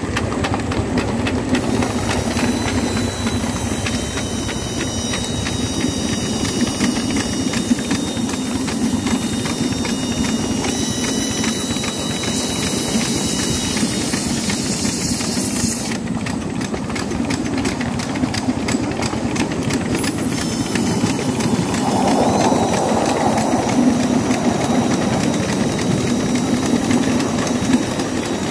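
7¼ inch gauge miniature steam locomotive running along the track, heard from the driver's seat just behind the boiler: steady steam hiss and working noise with the wheels clicking over the rails.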